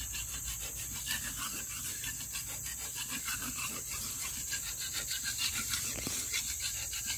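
Quick, even rasping strokes of a hand tool worked back and forth on wood, over a steady high insect drone.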